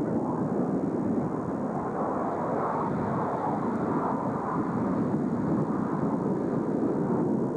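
Steady jet noise from a six-ship formation of Blue Angels A-4 Skyhawks flying toward the listener at a distance.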